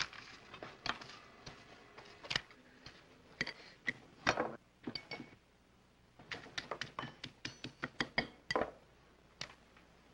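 Tableware sounds at a breakfast table: a scattered series of short clicks and knocks, then a quicker run of clinks from a knife and fork on a plate as hotcakes are cut.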